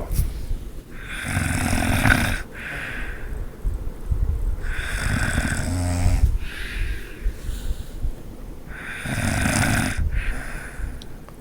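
A sleeping person snoring loudly: three long, rasping snores a few seconds apart.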